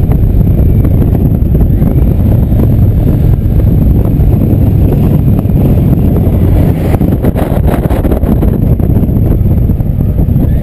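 Indian motorcycle cruising at steady road speed: a low, steady engine rumble under wind rushing over the microphone, the wind briefly choppier about seven seconds in.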